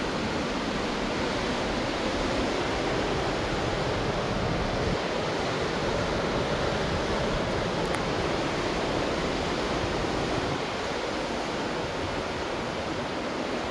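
Glacial meltwater rushing through a dam or weir, a steady, even rush of water.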